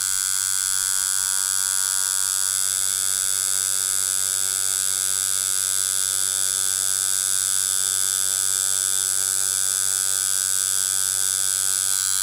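Deki Irons Sensei Rat Style rotary tattoo machine running steadily at 6 volts with a 9 magnum needle, packing black into practice skin: an even electric hum.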